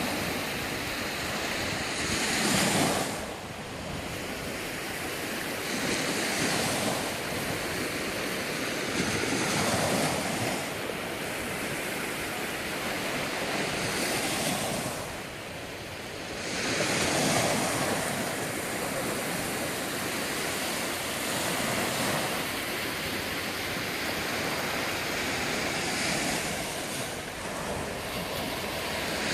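Sea surf washing onto a beach, the noise of the waves swelling and easing every few seconds.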